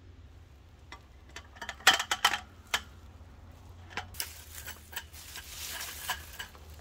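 Slats of a roll-up metal camping-table top clacking and rattling as it is fitted onto its folding frame. There is a quick run of sharp clicks about two seconds in, then softer rustling and scraping.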